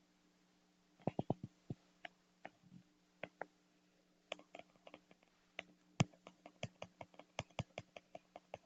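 Keyboard being typed on: irregular, clustered key clicks that start about a second in, over a faint steady hum.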